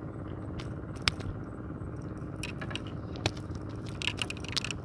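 Sharp clicks and scraping taps of a catch and tackle being handled in a wooden boat: one loud click about a second in, another a little past three seconds, and a quick run of clicks near the end, over a steady low rumble.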